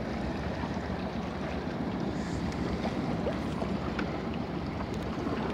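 Small boat's outboard motor running steadily at trolling speed, with wind buffeting the microphone and water washing past the hull.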